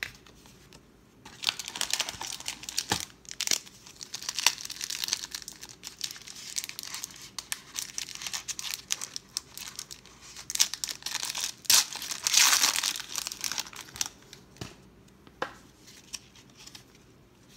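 Foil wrapper of a 1992 Pro Set football card pack crinkling and tearing as it is pulled open by hand, loudest about two-thirds of the way through. Near the end it gives way to a few light clicks as the cards are handled.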